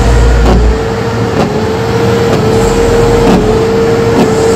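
A truck's horn held on one long steady note over a loud din of engines and crowd, with deep low booms near the start and again past halfway.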